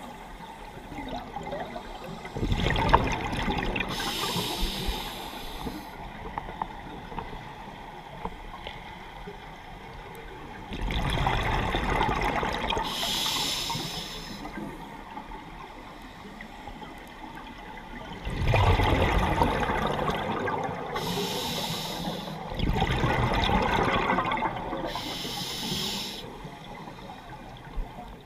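Scuba diver breathing underwater through a regulator: four bursts of bubbling, rushing breath, each joined by a short high hiss, coming every several seconds.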